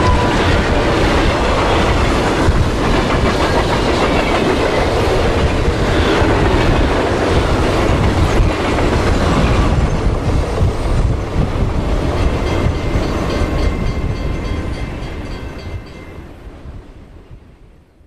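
Train passing in a sound-effect recreation: a loud, dense rumble with wheel clatter, the horn having just stopped. It fades away over the last few seconds as the train recedes.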